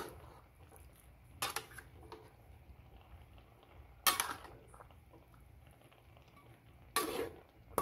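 A spatula scraping and knocking against a wok while stirring pork and bottle-gourd slices, three strokes a few seconds apart over a faint steady background.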